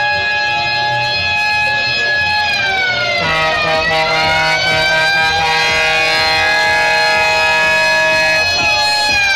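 Loudspeakers on a carnival float playing loud, sustained siren-like electronic tones whose pitch slides downward about three seconds in and again near the end.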